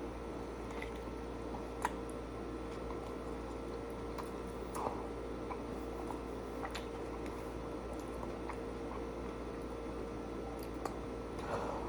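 A person chewing a sandwich: soft, wet squishing with scattered small mouth clicks and smacks over a faint, steady hum.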